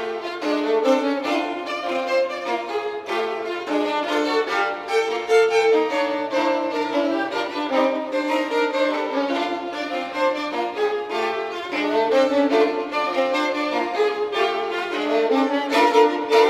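Several violins playing together, a piece with quickly changing notes and no lower instruments.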